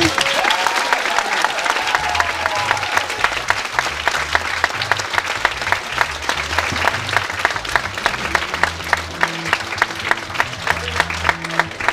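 Audience applauding, the claps falling into a regular rhythm of about three a second, in time with background music carried by a pulsing bass line.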